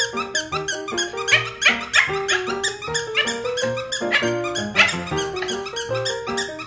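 Upbeat background music with a steady beat and quick plucked-sounding notes.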